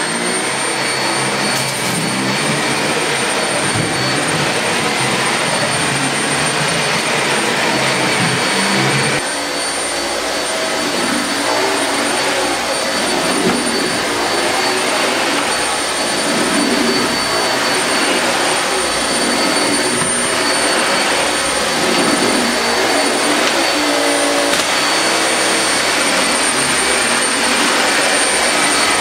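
Dyson Animal Ball 2 (UP24) upright vacuum cleaner running with its brush head pushed over carpet: a steady high-pitched motor whine over the rush of suction.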